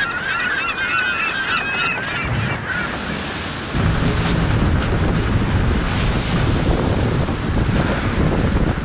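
A flock of birds calling, many overlapping wavering cries over steady wind and water noise for the first three seconds. About four seconds in, a louder low rumble sets in and continues.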